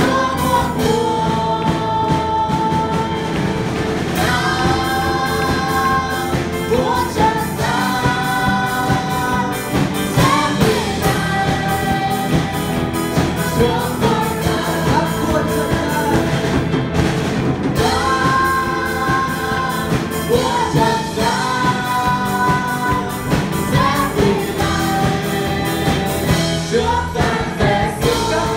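A man and a woman singing a Vietnamese worship hymn into microphones, backed by a live band of drum kit, electric guitar and keyboard with a steady beat.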